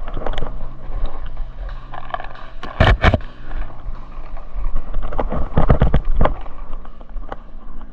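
Paintball markers firing: sharp pops, a pair about three seconds in and a quick run of shots from about five to six and a half seconds, over low rumble and handling noise.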